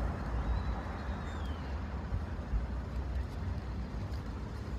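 Steady low outdoor rumble with no distinct events, with a faint, thin, high falling whistle about a second in.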